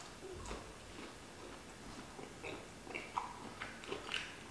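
A person biting into and chewing a plant-based fried chicken nugget: soft mouth sounds with scattered small crunches and clicks, a few sharper ones near the end.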